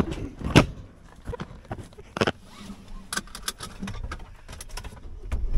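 Camera handling noise: a run of sharp knocks and clicks with rubbing and rustle as the camera is picked up and carried into the van's cab, with two louder knocks about half a second and about two seconds in.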